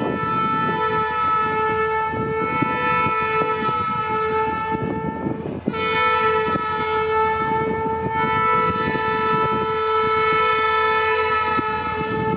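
Diesel freight locomotive's air horn sounding two long blasts, a chord of several tones, with a brief break about six seconds in. The rumble of the passing locomotive runs underneath.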